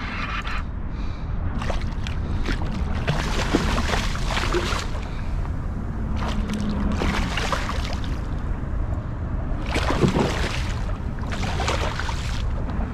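Water splashing and sloshing around a kayak in several bursts of about a second each, over a steady low rumble of wind on the microphone.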